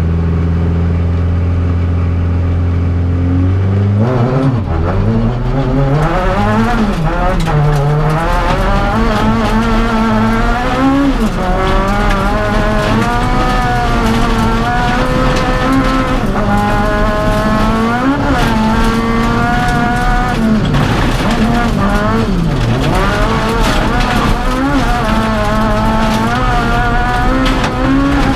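A Honda Civic Type-R rally car's four-cylinder engine, heard from inside the cabin. It holds steady revs, then launches about four seconds in and revs hard through the gears, its pitch climbing and dropping at each shift and lift. Gravel noise from the tyres runs underneath.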